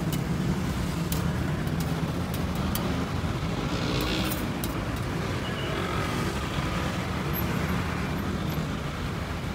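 Steady low rumble of street noise with scattered light clicks and clinks, and a short hiss about four seconds in.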